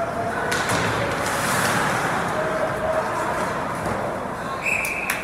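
Ice hockey rink ambience: a steady rush of skates on ice mixed with scattered spectator voices. Near the end a shrill, steady whistle starts.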